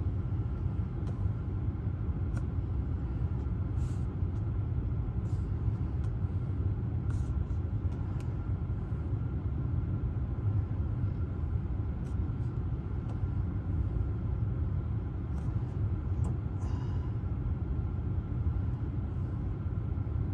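Steady low rumble, with a few faint clicks scattered through.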